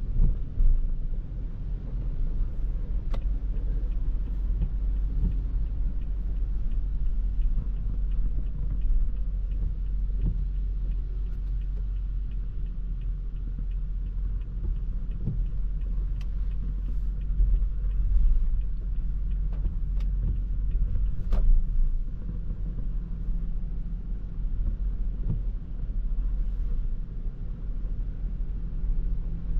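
Toyota Prius α driving on a wet road: a steady low road and tyre rumble, with faint even ticking and a couple of sharp clicks.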